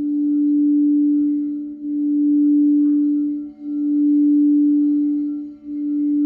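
Crystal singing bowls ringing in a sustained low tone that swells and dips about every two seconds, with fainter higher tones sounding above it.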